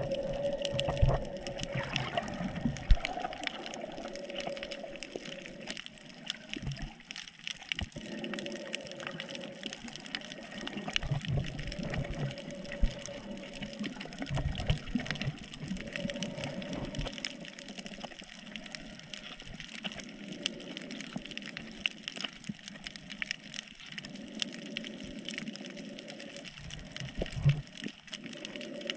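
Water sloshing and gurgling around a GoPro camera as a snorkeler moves through the sea. A muffled hum comes and goes every few seconds, and there are a few low thumps.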